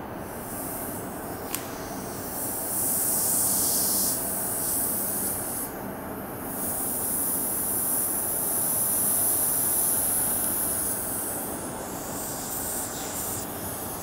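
Steady workshop background noise with a high hiss rising over it twice, for about a second and a half and then for about four seconds.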